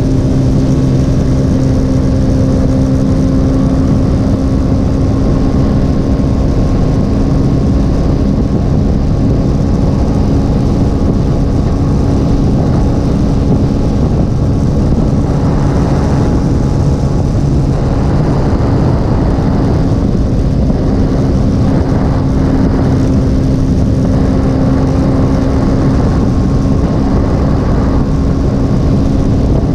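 Motorcycle engine running steadily at cruising speed on the highway, with heavy wind rush on the microphone.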